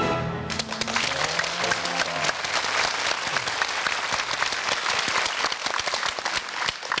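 Applause from many hands, dense and steady, starting about half a second in as soft background music fades out.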